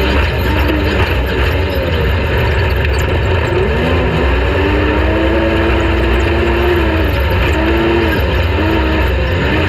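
Off-road race vehicle's engine under throttle. Its pitch climbs and holds, then drops and comes back up several times in quick succession near the end as the throttle is lifted and reapplied. A steady low rumble and rushing noise run underneath.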